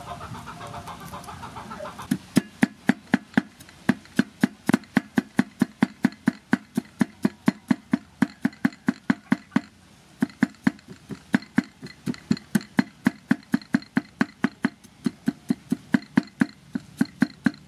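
Cleaver chopping garlic on a wooden chopping block: rapid, steady knocks of the blade on the wood, about four to five a second. The chopping starts about two seconds in.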